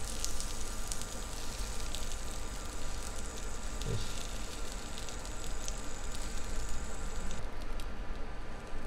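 Oil-soaked slices of bread frying in a hot, dry frying pan: steady sizzling with scattered crackles, the high hiss thinning out near the end.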